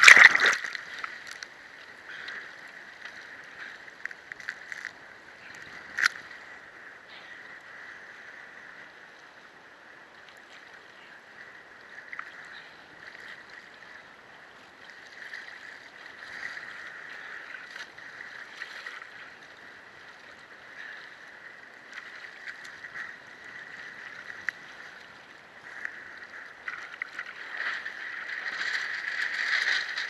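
Lake water splashing and sloshing close around the camera at the surface after a windsurfing wipeout. A loud splash comes at the start and a sharp knock about six seconds in, and the splashing grows louder near the end as the sail is handled in the water.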